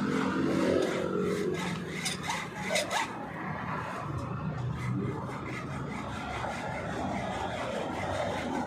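Scraping and rubbing of a tool on a hard surface, with a quick series of sharp clicks about one to three seconds in.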